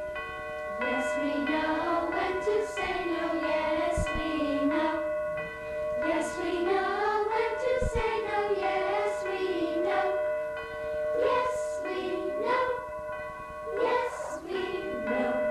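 Youth choir singing over an accompaniment of steady held tones, with two brief low thumps partway through.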